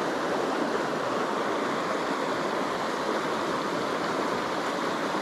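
Small stream's running water, a steady, even rush.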